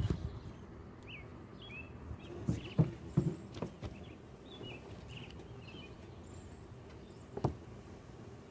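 Small birds chirping, a scattering of short high calls over steady outdoor background noise. A few dull knocks come about three seconds in, and a single sharper knock comes near the end.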